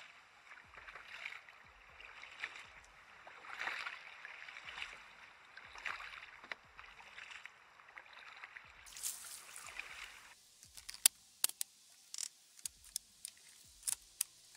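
Water swishing around a moving kayak in regular swells about once a second. About ten seconds in the swishing stops, and a series of sharp clicks and taps follows.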